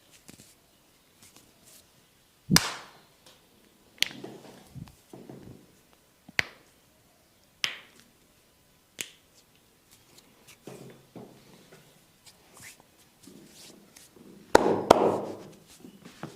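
Sharp slaps and snaps of a masseur's hands on a client's bare oiled skin during a percussive massage, one crack every second or two. The loudest is a quick double slap near the end.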